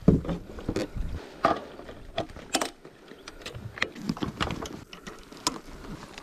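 Irregular clicks, knocks and light rattles of gear being handled, spaced unevenly, with a sharp knock right at the start.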